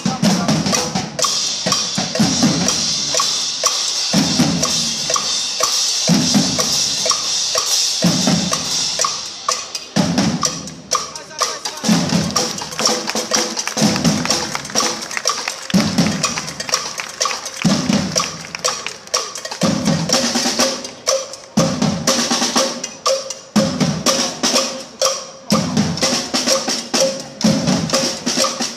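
An ensemble of many drummers playing together on drum kits, toms and cymbals, with heavy unison hits about every two seconds and quicker strokes in between. A loud cymbal wash rings over the first ten seconds or so and then drops away.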